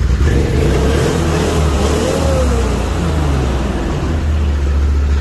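A vehicle engine running steadily with a low drone. A higher whine over it rises and falls about two seconds in.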